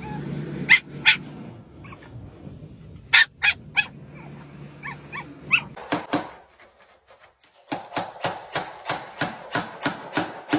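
A dog barking and yipping in short, separate calls, then a run of quick barks at about three a second through the second half.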